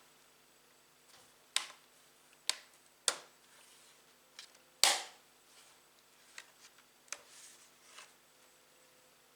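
Irregular sharp clicks and knocks, about eight of them, the loudest about five seconds in: small laptop parts being handled during an SSD upgrade.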